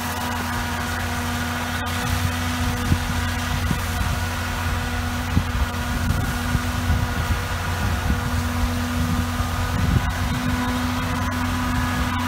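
Ford 9700 tractor's six-cylinder diesel engine running steadily at a constant speed as the tractor is driven.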